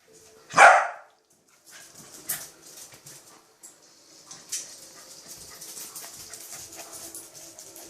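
Welsh corgi sneezing: one loud, sharp sneeze about half a second in, followed by fainter short bursts a couple of seconds apart.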